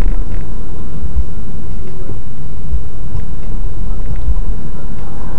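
Steady deep rumble of a moving car's engine and tyres, heard from inside the cabin through a dashcam microphone.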